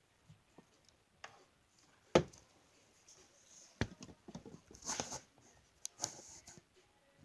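Handling noises: a sharp knock about two seconds in, a second knock near four seconds, then two short spells of rustling.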